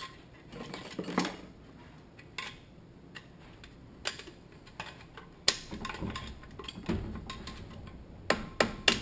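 Steel snap ring being worked into its groove above a clutch pack inside a Toyota A340 automatic transmission case, with irregular metallic clicks and clinks as it seats, the sharpest ones near the end.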